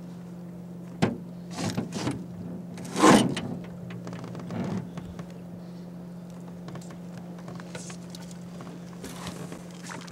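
A hooked trout thrashing and splashing at the surface as it is brought to hand, several short splashes in the first five seconds, the loudest about three seconds in. A steady low hum runs underneath.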